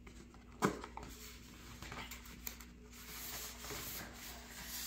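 A foam model-airplane fuselage is handled and turned over by hand. There is one sharp knock about half a second in, then faint rubbing and rustling of hands on the foam, growing a little louder near the end.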